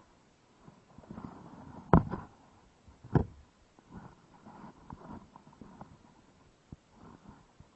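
Two loud knocks about a second apart, among softer bumps and rustling: people and gear moving about on the boat.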